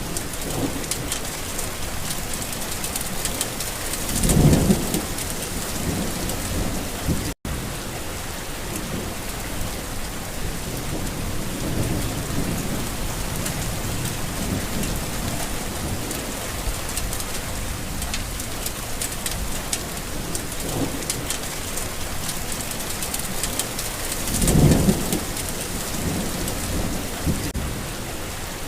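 Steady rain falling on a garden, with two loud rolls of thunder, one about four seconds in and one near the end, and fainter rumbles between. The sound cuts out for an instant about seven seconds in.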